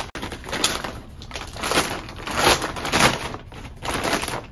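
Plastic poly mailer bag being torn open and crinkled by hand, in a series of separate rips and rustles.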